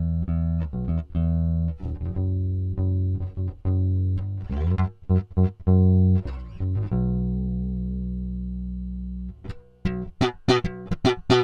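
Junior JB100 Jazz-style electric bass played through its neck pickup alone, tone knob fully open. A run of sustained notes gives way to one long note held and slowly fading, then from about ten seconds in a quick series of sharp, bright notes.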